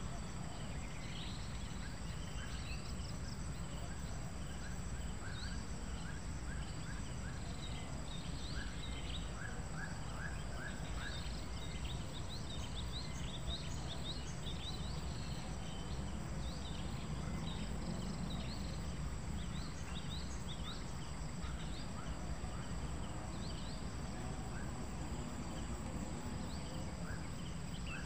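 Rural outdoor ambience: small wild birds give scattered short chirps, including a quick run of about five chirps near the middle, over a steady high insect drone and a low rumble of wind.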